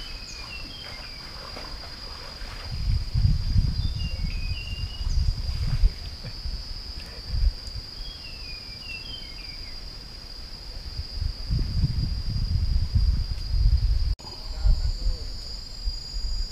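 Insects shrilling in one steady high tone, with a bird giving short descending chirps three times. Low rumbling noise on the microphone comes and goes in two stretches, and near the end a second, higher insect tone joins in.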